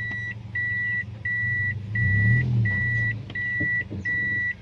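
Toyota Yaris cabin warning buzzer beeping evenly, about one and a half beeps a second, as the automatic car is driven in reverse. Under it the engine runs, rising briefly about two seconds in, with a few faint knocks near the end.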